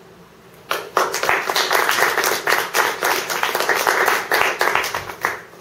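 Audience applauding: a burst of hand clapping that starts about a second in and stops shortly before the end.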